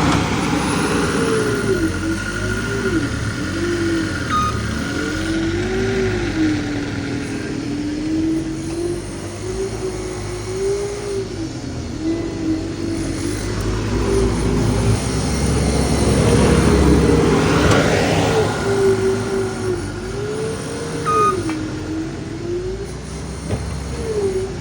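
Skid steer engine working under load while moving soil, its pitch dipping and rising every second or two as the load changes, with a thin steady whine over it for long stretches.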